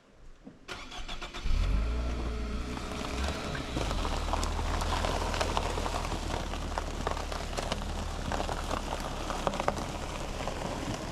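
An engine starts about a second and a half in and then runs steadily at idle.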